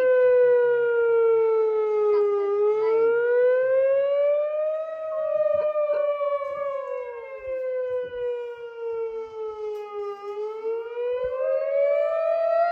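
Village siren wailing as the midday signal, its pitch sliding slowly down for about five seconds and then rising more quickly, twice over.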